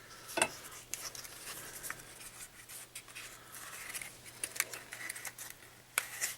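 Packaging being handled and opened: scattered scrapes, rustles and small clicks. There is a sharper click about half a second in and another near the end.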